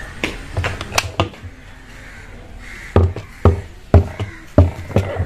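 Light clicks of parts being handled, then about five sharp knocks roughly half a second apart, as a top-load washing machine's brake assembly is fitted and locked into place.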